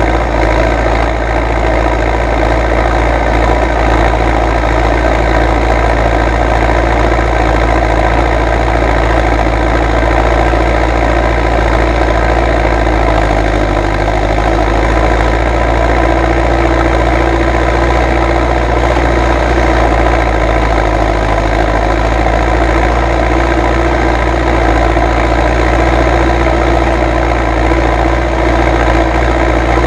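MTZ-82 tractor's four-cylinder diesel engine running loud and steady at constant revs, heard close to the hood and exhaust stack. The title asks whether the muffler is torn.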